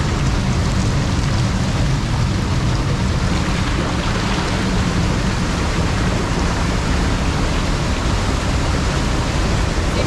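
Small waterfall and its stream rushing into a pool, heard close up as a loud, steady wash of water noise.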